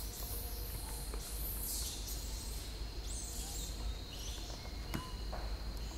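Forest ambience: a steady thin high insect tone over a low rumble, with brief rustling surges and a single sharp click about five seconds in.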